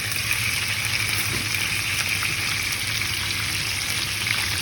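Cheese-topped smash burgers sizzling steadily in an uncovered frying pan.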